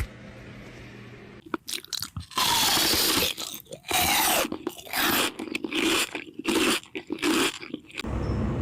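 Loud crunching in irregular bouts, each from a fraction of a second to about a second long with short pauses between, starting about a second and a half in.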